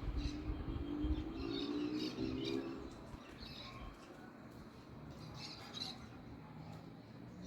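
Small birds chirping and twittering in short, scattered high calls. During the first three seconds a lower, pitched sound runs beneath the calls, along with some low rumble.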